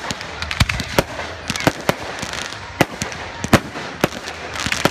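Fireworks display, with aerial shells bursting in quick irregular succession: a dense string of sharp bangs and pops, well over a dozen in a few seconds.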